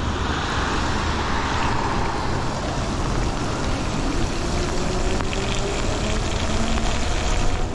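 E-bike riding on a wet road: steady wind rush on the microphone and tyre hiss on the wet pavement, with a faint motor whine that rises in pitch around the middle as the bike picks up speed.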